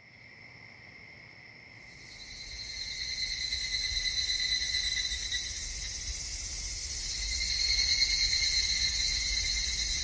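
Insects chirring steadily in a high, even drone, fading in and growing louder from about two seconds in.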